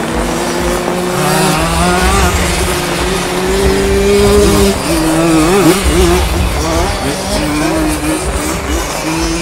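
Simson 60cc two-stroke moped engines racing on a motocross track, more than one bike at once, revving up and down and changing pitch as the riders shift and work the throttle.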